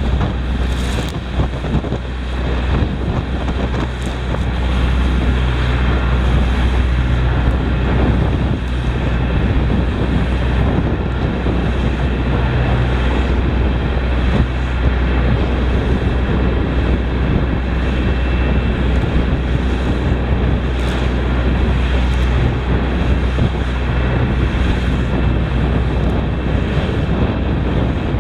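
Wind buffeting the microphone aboard a small fishing boat running through rough water in a gale, over the boat's steady low engine hum and the splash of waves against the hull.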